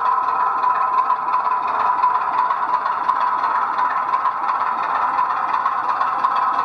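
00 gauge model locomotive running on a model railway layout: a steady, unbroken mechanical drone.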